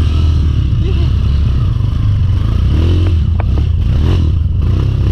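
Trail motorcycle engine running steadily as the bike rides over rough ground, with rattling and a few sharp knocks about three seconds in.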